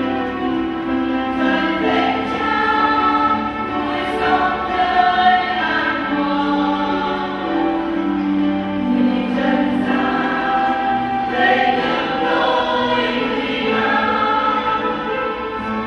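Choir singing a hymn, the notes held long and moving in steps, as the entrance hymn for a Mass procession.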